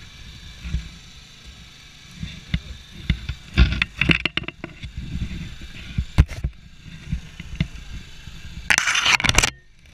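Irregular knocks, bumps and rustling as people move about the cockpit and fibreglass float of a stopped amphibious ultralight trike. Near the end comes a loud scraping rush close to the microphone, lasting under a second.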